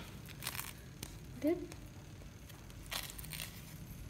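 Faint scraping of a fork spreading a thick creamy vegetable dip over a soft burger bun, a few soft scrapes about half a second in and again near three seconds. A brief murmur from a voice about one and a half seconds in.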